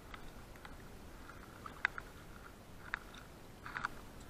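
A few short, sharp little splashes and clicks about a second apart, the last a quick cluster near the end, from a small hooked wild brown trout being brought in at the surface.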